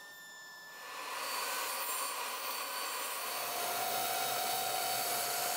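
A power tool motor spinning up over about a second and then running steadily with a hiss, a steady whine joining about three seconds in.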